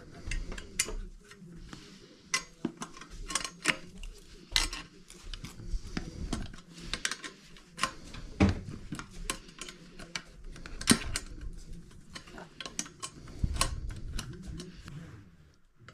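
Small metal bike hardware and tools clinking and clattering in irregular sharp clicks as parts are taken off an e-bike's front fork and headset.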